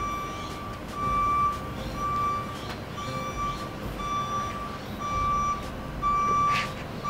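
Reversing alarm beeping about once a second, each beep a steady high tone about half a second long, over a low rumble. A short swish near the end.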